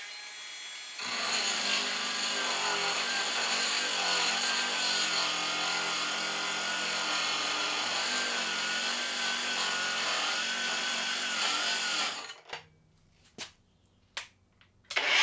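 Budget cordless angle grinder with a thick grinding disc grinding the edge of a steel flat bar: a steady grinding rasp over the motor's slightly wavering whine. It gets louder about a second in and stops about twelve seconds in.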